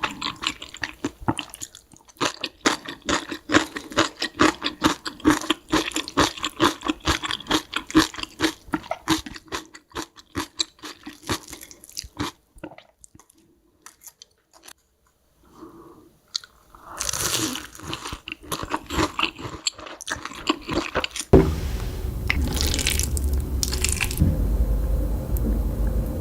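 Close-miked eating sounds: rapid chewing and crunching of food, with a quiet pause past the middle. Near the end the background changes abruptly to a steady low hum, with only occasional mouth sounds over it.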